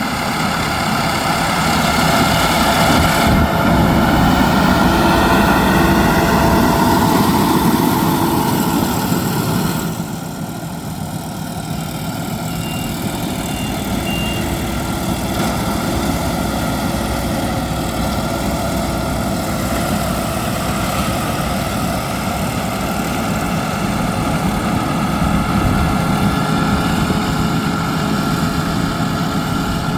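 Yanmar YH6115 six-row combine harvester running steadily while harvesting rice, engine and threshing machinery working together. About ten seconds in, the sound drops a little and its hiss thins out.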